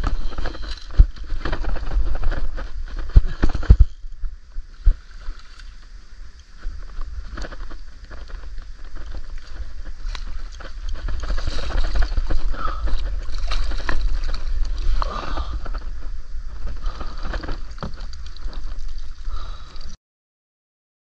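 Water splashing and sloshing as a hooked redfish thrashes at the surface beside a kayak, with a steady low wind rumble on the microphone. Several sharp knocks come in the first few seconds, and the sound cuts off about a second before the end.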